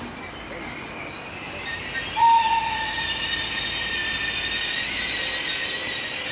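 Train of passenger coaches pulling away over the station tracks, its wheels squealing in several steady high tones from about two seconds in. A brief single whistle-like tone, the loudest sound, comes just after the squeal starts.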